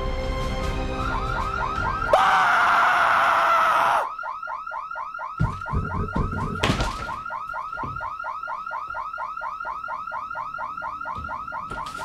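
Fire alarm sounding a fast repeating electronic pulse, about six a second, starting about a second in and carrying on steadily. About two seconds in, a loud burst of noise covers it for two seconds, and a few dull thumps follow. Music plays under the first two seconds.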